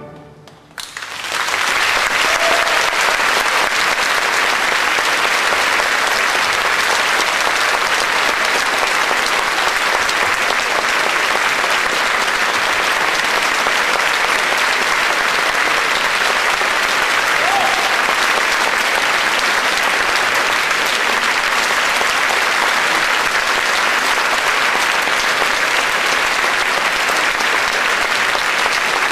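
Large audience applauding steadily, the clapping breaking out about a second in just after the orchestra's final chord fades.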